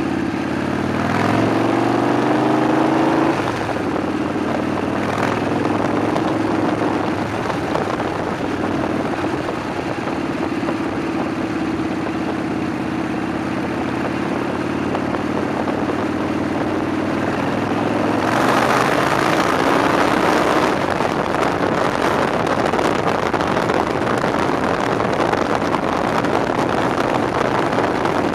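Harley-Davidson V-twin motorcycle engine accelerating, its pitch climbing over the first few seconds, then cruising steadily under heavy wind rush on the bike-mounted microphone. The wind and engine grow louder for a few seconds about 18 seconds in.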